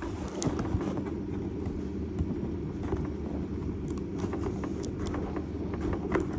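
Steady low hum in the background, with scattered light clicks and rustles of toy packaging being handled.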